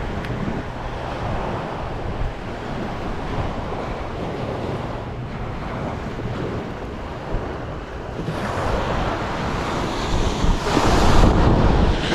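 Ocean surf washing onto the beach, with wind buffeting the microphone. A wave comes in louder about eight seconds in and peaks near the end.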